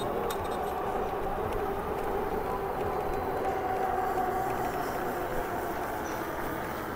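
Electric bike in motion: a steady rush of wind and tyre noise with a faint steady motor whine.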